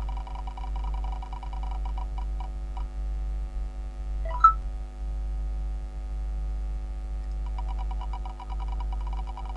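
Ticking of an on-screen spinning prize wheel, fast at first and slowing until it stops a little under three seconds in. About halfway through comes a short, loud rising electronic tone, and near the end fast ticking starts again. A steady low electronic hum runs under it all.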